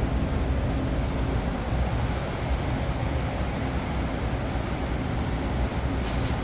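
Steady low rumble and hiss of cleanroom air handling, with a few faint clicks near the end.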